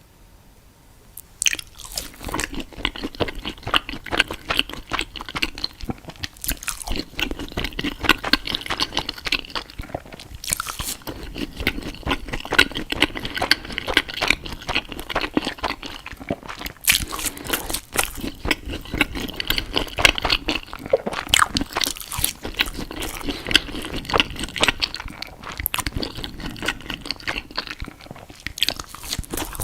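Close-miked eating sounds: continuous crunching and chewing, starting about a second and a half in.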